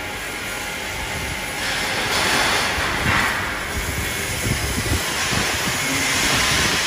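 Steel-fabrication shop noise: a steady hiss with crackling from welding on steel grating panels, growing louder about two seconds in.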